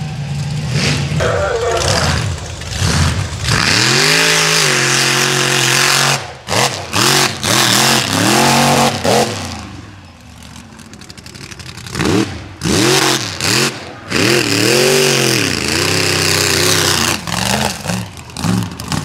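Mega truck engine revving hard, its pitch climbing and falling again and again as the throttle is stabbed on and off in quick bursts, with a brief easing off about halfway through.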